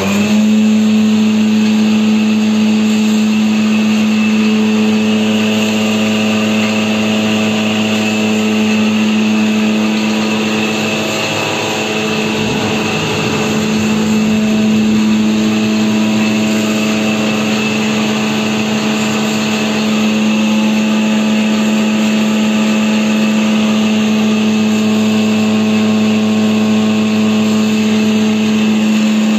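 Electric wood planer (randa machine) running at full speed: a steady motor hum with overtones and a high whine from the spinning cutter block. The note sags briefly about twelve seconds in, then settles again.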